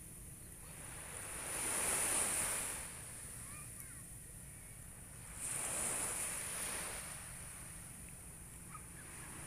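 Small waves washing up onto a sandy beach, the surf swelling twice, about two and six seconds in.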